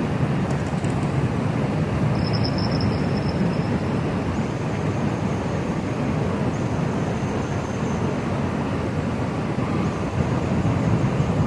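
River rapids rushing: a steady, loud rush of water over rocks.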